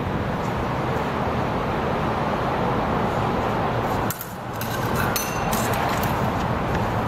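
Rapier and dagger blades clashing: a quick run of metallic clinks about four to six seconds in, a couple of them ringing briefly, over a steady rushing background noise.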